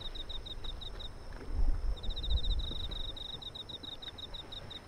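Insect chirping in fast, even trains of short high-pitched pulses, about eight a second, with a pause about a second in. A low rumble runs underneath and swells briefly about two seconds in.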